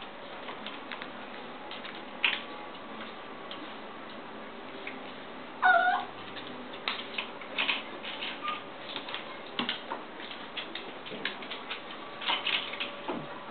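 A small chiweenie (chihuahua-dachshund mix) working at a pet gate: scattered clicks and taps of claws on the gate and the hardwood floor. There is one short whine about six seconds in.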